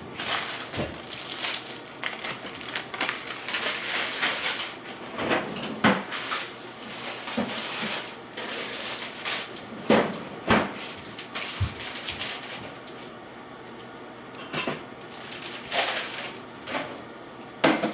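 Kitchen clatter of dishes and cupboards being handled: irregular clinks, knocks and scrapes, with a few sharper knocks around the middle and near the end and a quieter spell in between.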